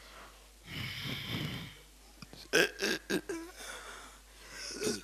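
A person's breathy, strained vocal sounds in a few bursts, like heavy breathing or wheezing.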